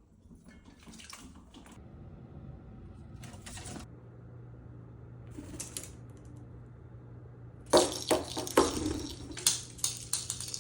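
Water from a tap running into a sink, with scattered splashes that become louder and more frequent over the last three seconds.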